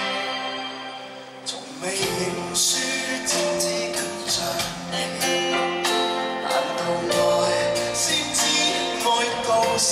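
Live pop band on stage: a held chord fades, then about a second and a half in the drums and band come in with a steady beat of bright percussion hits under sustained chords.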